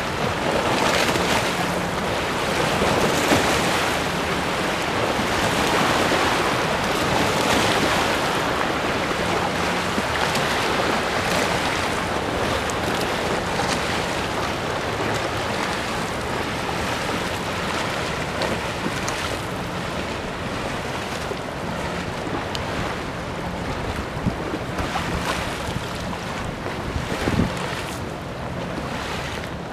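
Waves from high flood water washing over a submerged waterfront walkway and against its railing, a continuous rushing that swells and eases every few seconds. Wind buffets the microphone throughout.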